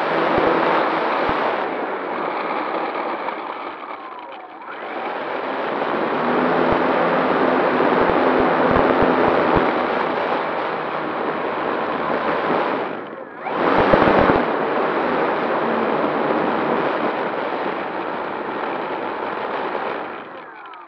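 A radio-controlled scale Cessna 188 model's motor and propeller running as it taxis on grass, heard loud and close from the nose, with the level dipping briefly twice. It cuts off near the end as the propeller is stopped.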